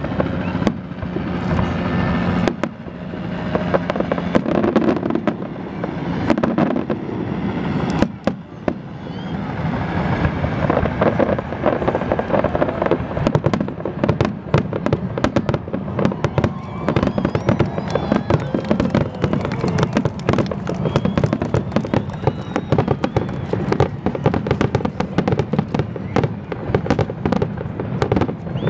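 Aerial fireworks shells bursting in a rapid barrage of bangs and crackles, which grows denser and near-continuous about ten seconds in.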